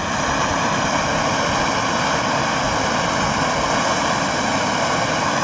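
MAP gas torch flame running steadily, a loud even hiss, as it heats the end of a 6061-T6 aluminum tube to anneal it before crimping.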